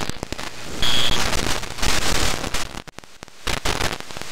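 Radio static from an Airspy HF+ software-defined receiver in AM mode as it is tuned across the bands: a dense hiss with sharp crackles, the static crashes of lightning. A brief high whistle comes about a second in, and the noise dips for a moment near three seconds, then the hiss returns.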